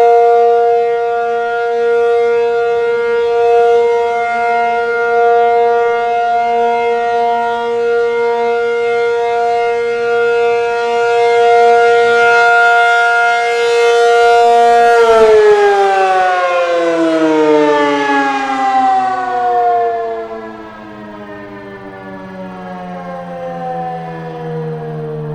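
ASC T-135 outdoor warning siren on an AC/P-50 rotator sounding the steady alert tone of a one-minute alert test. About fifteen seconds in it cuts power and winds down, its pitch falling slowly.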